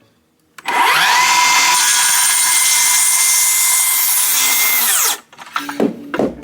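Electric power tool motor spinning up to a steady high whine, running for about four seconds, then winding down.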